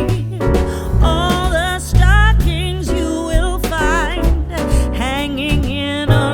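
Background music: a song with a sung melody over bass and a steady beat.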